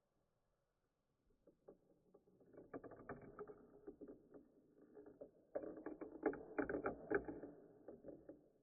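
Marbles rolling and clattering down a small marble run track. Scattered clicks begin about a second in and build into a busy rattle, then a louder run of rapid clicks starts suddenly about halfway and tapers off near the end.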